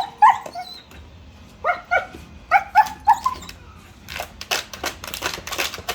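A puppy gives a string of short, high-pitched yips and barks, then from about four seconds in comes a rapid, continuous clatter of clicks.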